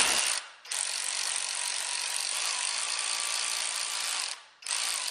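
Hand ratchet on a long extension clicking steadily for about three and a half seconds as it backs out a small T25 Torx bolt, with a short burst of ratcheting at the start and another near the end.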